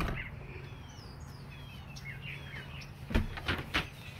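A sharp click of a lever door latch at the start, then faint small-bird chirps over a low steady hum, and a few sharp knocks from about three seconds in.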